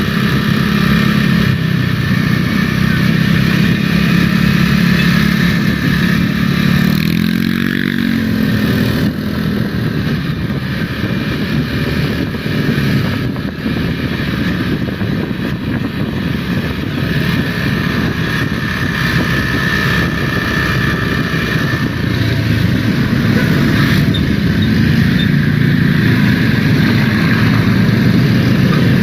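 Road traffic with a bus engine running, loud and continuous; about seven seconds in an engine note rises and falls as a vehicle revs or passes.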